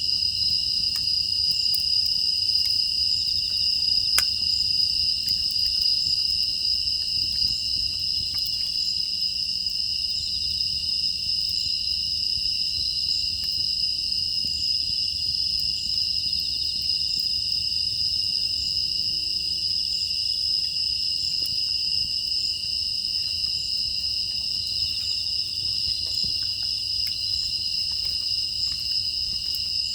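A steady, high-pitched chorus of crickets and other grass insects trilling without a break, with faint scattered crackles of a wood fire, one a little louder about four seconds in.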